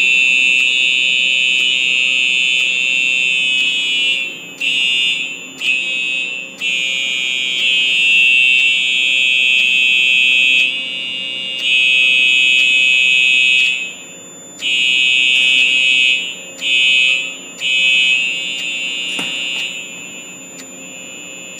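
Fire alarm horns sounding a loud, shrill tone that starts and stops in blasts of uneven length: some last several seconds, others only about half a second. A single click comes about 19 seconds in.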